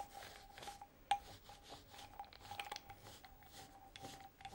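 Damp foam roller loaded with silver gouache rolled back and forth over paper: a faint, soft rubbing in repeated strokes, with one sharp click about a second in.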